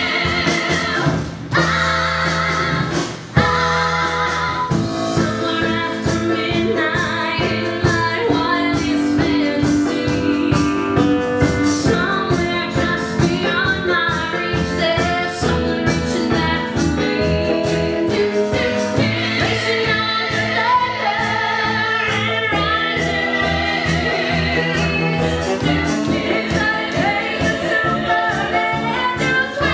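Women singing an up-tempo pop-rock number from a stage musical, backed by a band. A steady drum beat kicks in about four seconds in.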